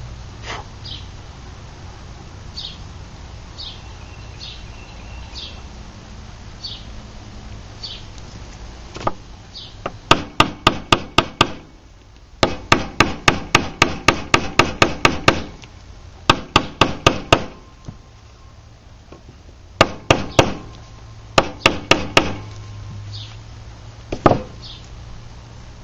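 Light hammer taps on the knife handle in several quick runs of about six taps a second, with short pauses between them, and a single knock near the end.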